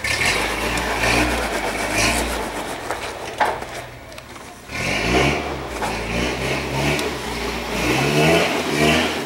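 Lifted pickup truck's engine revving in bursts while rock crawling over boulders, the revs climbing twice in the second half after a quieter spell. A single sharp knock sounds about three and a half seconds in.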